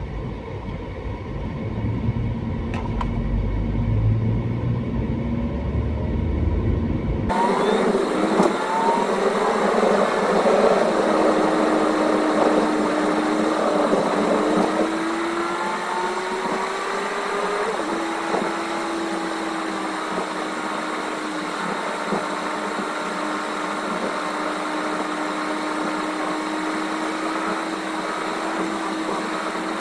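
A car driving on an urban highway, heard from inside the cabin: steady engine and road noise. About seven seconds in, the sound changes abruptly from a low rumble to a brighter hiss with a steady drone.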